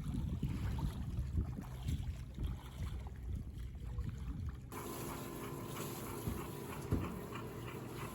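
Wind buffeting the microphone over sea water washing and splashing at the shore. About two-thirds of the way through, it cuts off abruptly to a quieter, steady hum.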